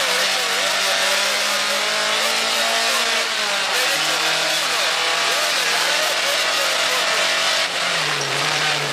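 Rally car engine running hard under load, heard from inside the cabin over a steady hiss of gravel and road noise. The engine note drops about three and a half seconds in and again near the end.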